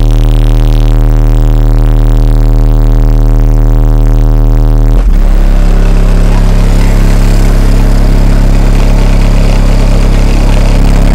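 One 18-inch Fi BTL car subwoofer playing very loud bass: a steady low bass note with a buzzy stack of overtones. About five seconds in it changes to a bass-heavy music track.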